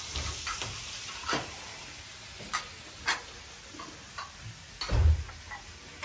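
Scattered light clicks and clinks of a serving spoon against plates as rice pilaf is dished out, with a dull low thump about five seconds in.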